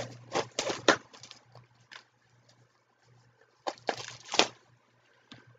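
Plastic shrink wrap crinkling and tearing as it is pulled off a record, in a few short crackles near the start and again about four seconds in.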